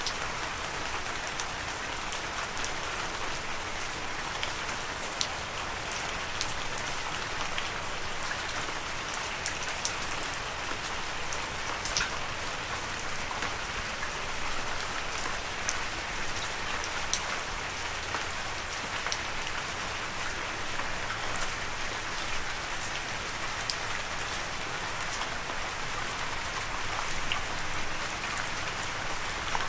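Steady rain: a dense, even hiss with many scattered sharper drop ticks.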